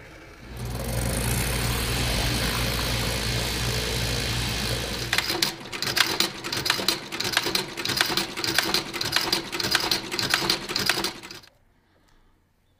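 Shoe-repair machinery running: a steady motor hum for the first few seconds, then the rapid, even clatter of an outsole stitching machine sewing on a new leather sole, which stops suddenly about a second before the end.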